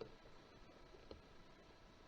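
Near silence, with one faint click about a second in.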